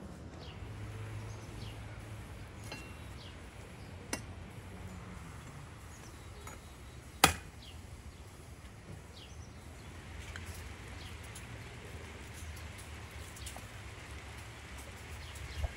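Quiet outdoor background with scattered faint bird chirps, a light click about four seconds in and a single sharp knock a little after seven seconds, the loudest sound.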